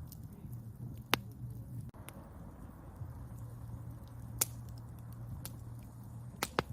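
Wood campfire crackling: a handful of sharp, separate pops (one about a second in, one past the middle, two in quick succession near the end) over a low, steady rumble of the burning fire.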